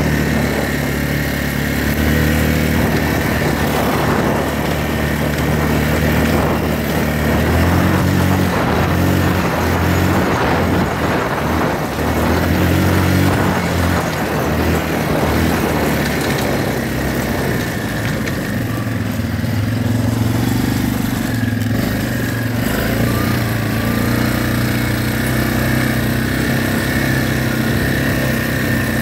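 ATV engine running under way, its pitch rising and falling several times as the throttle and speed change.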